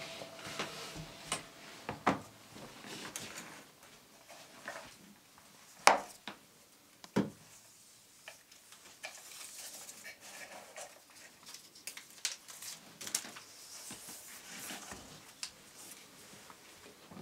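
Quiet handling sounds of craft work: scattered light clicks, taps and rustles, with two sharper knocks about six and seven seconds in.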